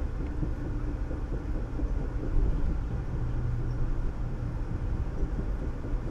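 Amtrak passenger train rolling along at speed, a steady low rumble of wheels on rail, heard from inside the car.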